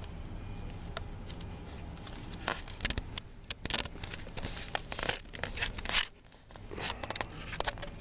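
Handling noise: irregular rustling, crinkling and clicks as the camera is moved about and things are handled, over a steady low hum.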